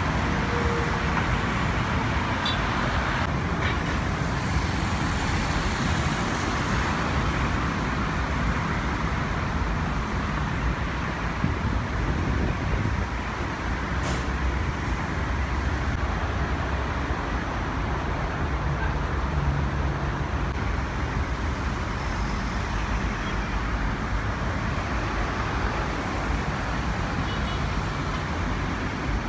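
Steady road traffic noise, a constant low rumble with a hiss over it that hardly changes.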